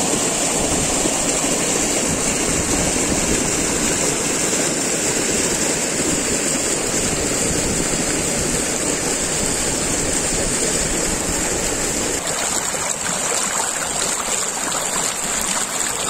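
Water rushing and splashing over rocks in a small waterfall, a steady rush. About twelve seconds in the sound turns thinner and lighter, a shallower splashing flow over a rock shelf.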